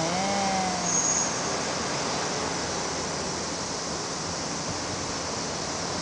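Steady outdoor background hiss with no distinct events, brightest in the high range. A voice trails off in the first second.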